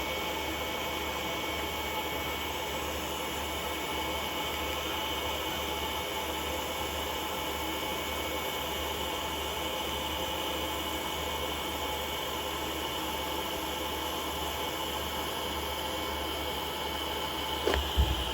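Steady hiss and hum of a Primeweld TIG225X TIG welder running an arc on titanium exhaust tubing, with a thin steady whine. Near the end the whine cuts off with a click as the arc stops.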